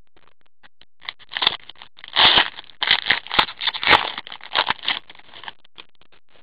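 A foil hockey-card pack crinkling and tearing as it is ripped open, with an irregular run of crackles and rips for about four seconds, loudest around the middle.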